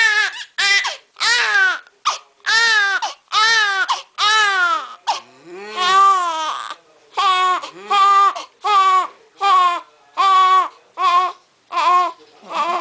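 Newborn baby crying in a rapid string of short, high wails, each rising and then falling in pitch, about one to two a second.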